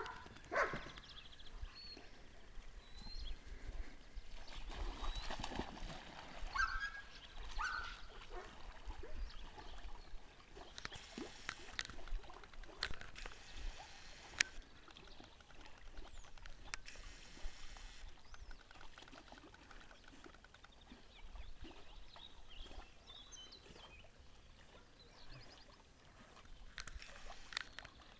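A black dog wading into a pond and swimming: soft splashing and lapping of water as it paddles, with a few sharper splashes.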